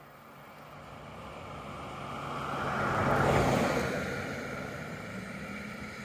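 A motor vehicle passing by: its sound swells steadily, is loudest about three seconds in, then fades.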